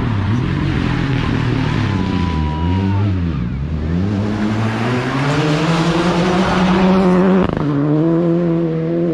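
Rally car engine off the throttle and wavering through a hairpin, then accelerating hard with revs climbing steadily. About seven and a half seconds in there is a sharp crack and the revs drop as it shifts up, then they rise again.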